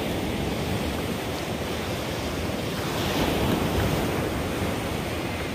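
Surf washing onto a sandy beach, a steady rushing noise that swells a little about three seconds in, with wind buffeting the microphone.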